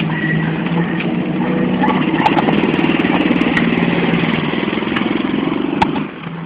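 A small step-through motorcycle's engine runs steadily at idle, then revs up and rises in pitch as the bike pulls away about two seconds in. About six seconds in it drops quickly to a fainter running sound as the bike moves off down the street.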